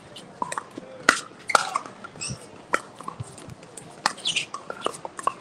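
Pickleball rally: a string of sharp pops of paddles striking the plastic ball, roughly one a second, with short high-pitched squeaks between the hits.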